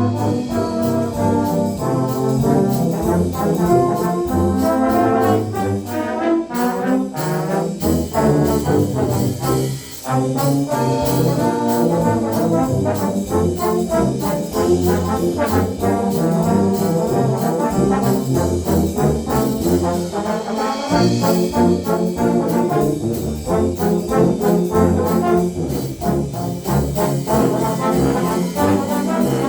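Low brass ensemble playing a jazz march, with a steady beat under the brass.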